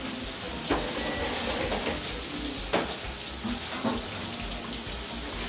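Fish frying in hot oil in a pan, a steady sizzle, with three sharp clinks of metal utensils against pans: one just under a second in, one near three seconds and one near four.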